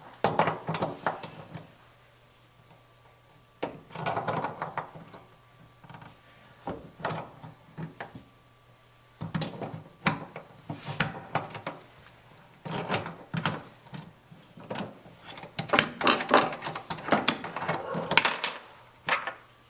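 Wrench clinking and knocking against a faucet's metal nut as the nut is undone, in irregular clusters of clicks and scrapes with quiet pauses between them, and a brief high squeak near the end.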